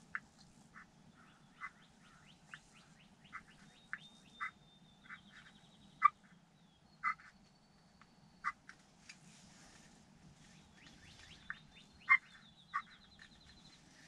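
Turkey clucks: short, sharp single notes, about one a second at irregular spacing. A faint, fast, high trill runs twice behind them.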